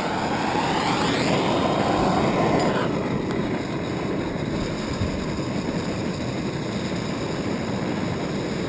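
Blowtorch flames burning steadily in the ports of a small vortex-style metal-melting furnace, a constant rushing hiss. For the first three seconds the sound sweeps and shifts as a torch is set in place, then it settles.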